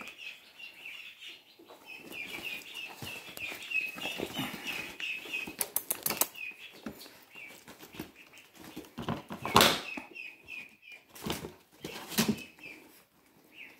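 A small bird chirping over and over in quick runs of short, high peeps, with a few sharp knocks mixed in, the loudest about two-thirds of the way through.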